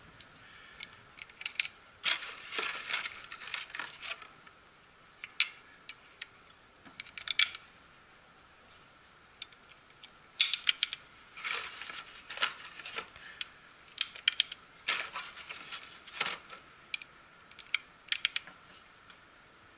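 Small brass pieces clinking and clicking as they are handled at a shooting bench: irregular clusters of sharp metallic clicks every second or few.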